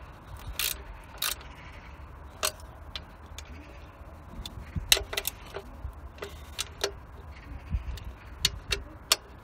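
Irregular sharp metallic clicks and clinks of hand tools on the engine while the intake manifold's nuts are tightened, with a low steady hum underneath.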